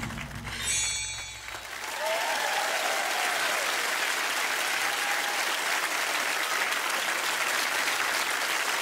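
The act's music ends within the first second, and then a theatre audience applauds, steadily and evenly, from about two seconds in.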